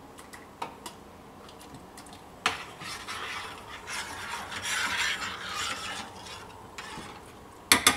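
A spoon scraping and knocking as kidney beans go from a can into a stainless-steel pan, then stirring the liquid in the pan with a scraping, swishing sound. A couple of sharp clinks of the spoon on metal near the end.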